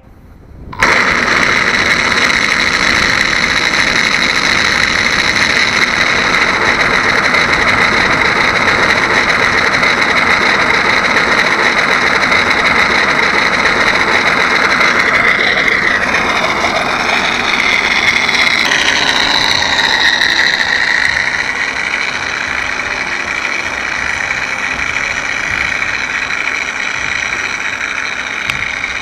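Electric motor and propeller of a 1.4 m Mitsubishi Zero model airplane running on the ground with a steady high whine, starting suddenly about a second in. The pitch wavers and shifts between about 15 and 21 seconds in, after which it runs a little quieter.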